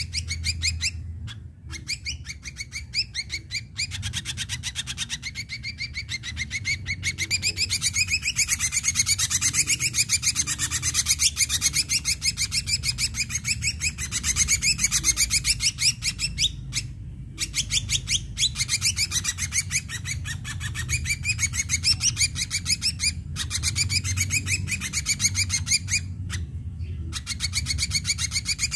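Ashy drongo singing vigorously: a fast, unbroken stream of short, high chattering notes, with a few brief pauses.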